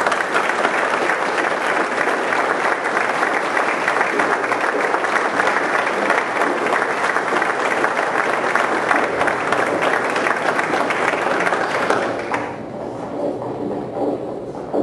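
Audience applauding, a dense sustained clapping for about twelve seconds that then dies away into scattered claps and voices.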